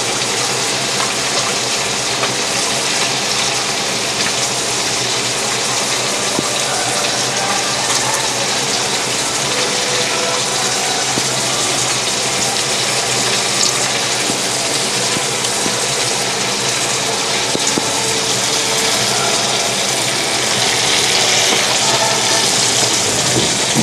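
Nile perch fillets frying in hot oil: a steady, even sizzle that grows a little louder near the end.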